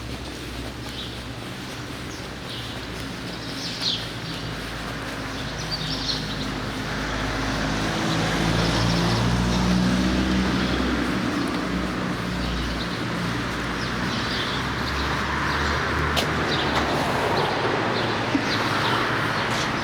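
Small birds chirping throughout while a motor vehicle's engine passes, swelling around the middle and fading. A steady rushing noise follows in the second half.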